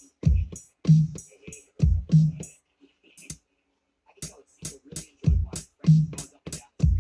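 Hip-hop drum pattern playing back from a Maschine groovebox: deep kick hits and snappy hits under sharp closed hi-hat ticks. It thins out for about a second and a half in the middle, then the same pattern comes round again.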